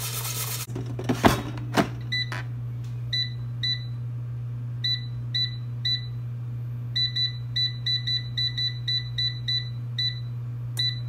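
Gourmia digital air fryer's touch panel beeping at each button press as the temperature and cook time are set: a string of short high beeps, coming quickly one after another near the end. About a second in, a couple of sharp knocks as the basket is pushed back into the fryer.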